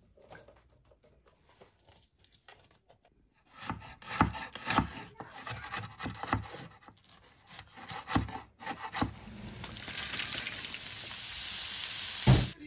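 Knife chopping on a wooden cutting board in quick, irregular knocks, then onions and peppers sizzling in a frying pan, the sizzle growing louder, with one thump just before the end.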